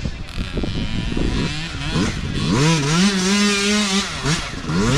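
Dirt bike engine revving up and down, held at a high steady rev for over a second near the middle, then dropping and climbing again near the end.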